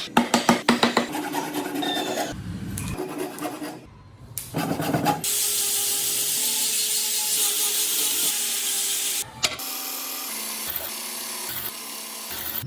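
Hand tools working wood: quick rasping strokes for the first couple of seconds, then a steady hiss lasting about four seconds, then quieter scraping near the end.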